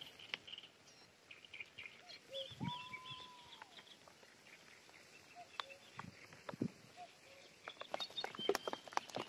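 Small birds chirping in quick high runs, with a distant common cuckoo calling its two-note, falling 'cuck-oo' every few seconds. A drawn-out arched whistle sounds about two and a half seconds in. Near the end comes a quick run of sharp clicks and taps.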